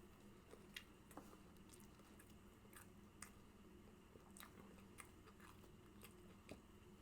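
Faint close-up chewing and mouth smacking while eating fast food: scattered soft wet clicks over a low steady room hum.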